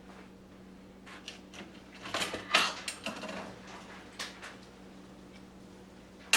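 Small steel transmission parts clinking and scraping as they are handled on a 700R4 transmission case during teardown. There is a cluster of sharp metallic clicks from about a second in, loudest around two seconds in, and they trail off before the end.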